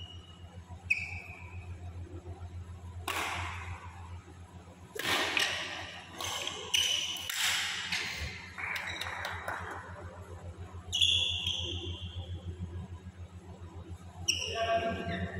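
Badminton rally: a series of sharp racquet strikes on the shuttlecock, ringing in the hall, with court shoes squeaking on the synthetic floor. A steady low hum runs underneath.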